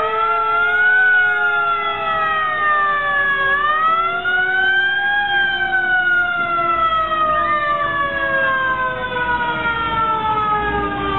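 A siren wailing: its pitch rises and falls twice, then slides slowly down over the last several seconds, with a second, lower siren tone gliding slowly down beneath it.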